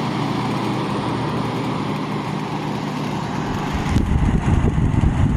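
Emerson Quiet Kool window air conditioner running on fan only at its quiet setting: a steady rush of air from its bladed front fan with a low hum, compressor not yet on. About four seconds in there is a click, and a louder, rougher low rumble sets in.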